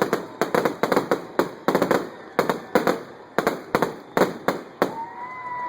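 A string of firecrackers going off in rapid, uneven bangs, several a second, thinning out about five seconds in, when a short steady high tone comes in.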